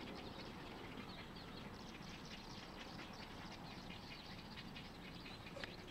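A nesting colony of egrets calling in the treetops: many short squawks overlapping in a steady din that sounds like chickens.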